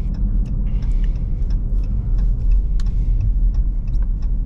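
Dodge Charger Hellcat's supercharged V8 running with a steady low rumble, heard from inside the cabin while driving, with scattered sharp ticks through it.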